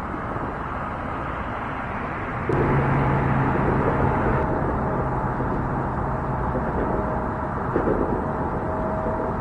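Road traffic on an overhead highway bridge: a steady rumble that grows louder about two and a half seconds in as a vehicle passes, carrying a low hum for a few seconds.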